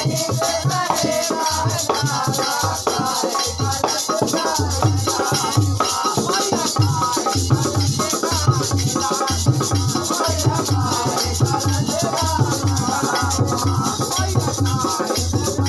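Jaware devotional folk song from Navratri, sung by a group of men. A steady low drumbeat and jingling, shaker-like percussion keep time throughout.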